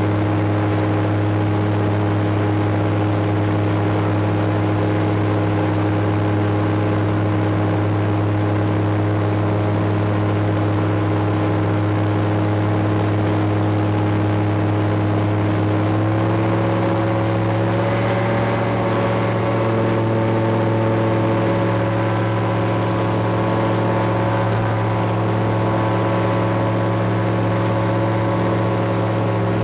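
Searey amphibian's pusher engine and propeller heard from inside the cockpit, running at a steady power setting. About halfway through the engine note steps up to a higher pitch and holds there as power comes up for the climb away from the runway.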